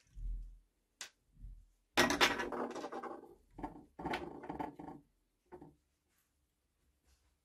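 Brass spindle nut worked by hand in its seat on a steel lathe slide, scraping and grating against the metal and loose chips in several bursts, the loudest about two seconds in. A couple of soft knocks and a click come first.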